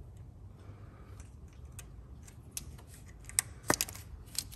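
Small plastic clicks and ticks from an engine wiring connector being worked by hand as its locking tab is slid out and the clip is squeezed to release it. The clicks are scattered and irregular, and the loudest comes about three quarters of the way through.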